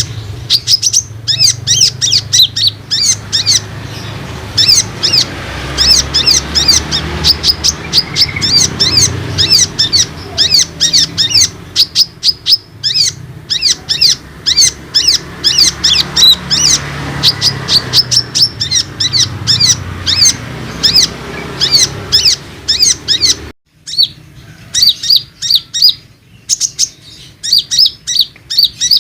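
Olive-backed sunbird singing: a fast, unbroken run of high, sharp chirps, several a second. There is a short cut to silence about four-fifths of the way through, and the song then resumes over a quieter background.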